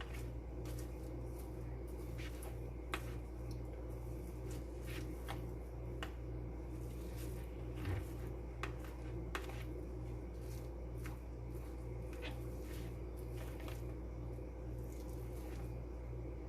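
Faint scattered clicks and light taps over a steady low hum that pulses about twice a second.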